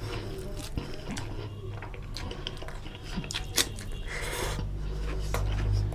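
Close-up chewing and wet lip smacks of a person eating chicken curry with rice, with scattered sharp clicks, one louder click a little past halfway. A steady low hum runs underneath.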